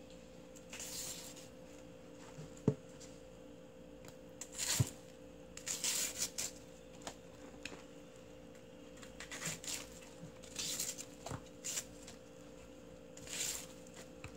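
Hands pulling apart and turning salted napa cabbage leaves in a bowl: short, intermittent bursts of crisp, wet rustling and tearing, with a few light knocks.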